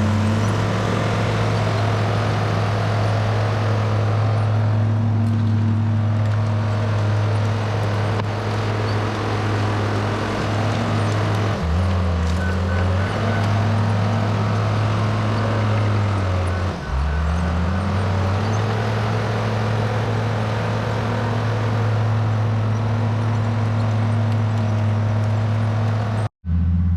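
Case 850K XLT crawler bulldozer's diesel engine running hard, a steady drone that sags in pitch twice, around twelve and seventeen seconds in, and climbs back each time as the engine takes and sheds load. The sound cuts out for an instant near the end.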